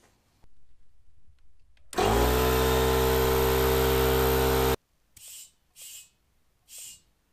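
Small Powerplus portable air compressor's electric motor starting up, its pitch settling into a loud steady hum for about three seconds before cutting off suddenly. Then three short hisses of air from a tyre inflator gun at the wheel's valve.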